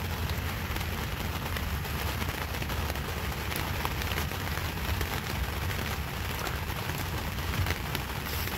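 Steady rain pattering on the boat and on rain gear, a dense spread of fine ticks, over a steady low rumble.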